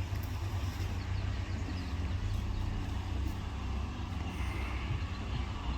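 Heavy diesel engine of earth-moving machinery running steadily with a low rumble.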